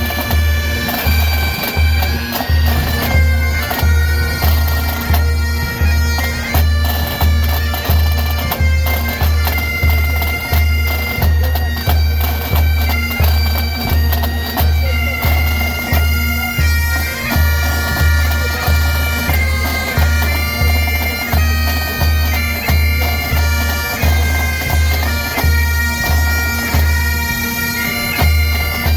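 Pipe band playing: Great Highland bagpipes sound a tune over their steady drone, with a bass drum beating a steady pulse underneath.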